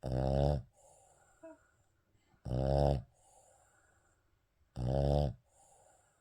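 Shih Tzu snoring in its sleep: three loud, pitched snores about two and a half seconds apart, with soft breathing between them.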